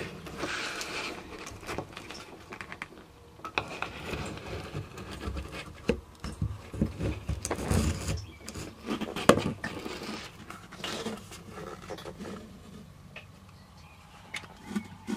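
Water dripping irregularly inside the enclosed cavity of a GRP boat hull, heard as scattered sharp drips and ticks, with occasional knocks and scrapes.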